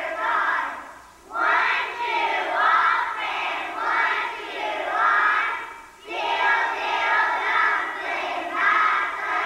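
A group of young children singing together in unison, loud phrases broken by two short pauses for breath.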